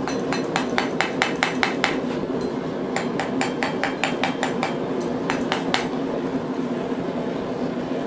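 Hand hammer tapping hot 5 mm steel bar against the anvil edge to bend a small loop over: quick runs of sharp metallic taps, about six a second, pausing briefly around two and five seconds in and stopping about six seconds in, over a steady low hum.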